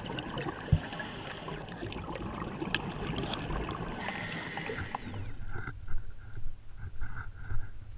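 Muffled underwater noise heard through a GoPro's waterproof housing, an even hiss with scattered sharp clicks. About five seconds in it cuts to quieter open-air sound, a low rumble with short, irregular blips.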